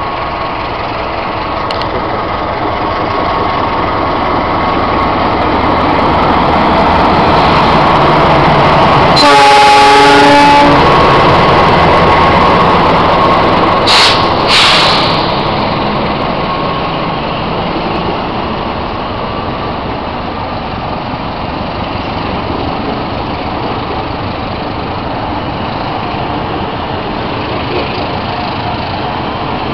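CC 206 diesel-electric locomotive hauling empty container flatcars passes close by, its engine and wheels getting louder toward a peak about nine to ten seconds in, where a horn sounds for about a second and a half. Two short sharp noises follow a few seconds later, then the empty flatcars roll past with a steady rumble of wheels on rail.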